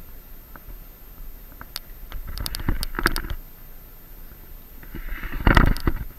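Handling noise close to the camera microphone: scattered sharp clicks and two louder bursts of rustling and bumping, about two seconds in and again about five seconds in.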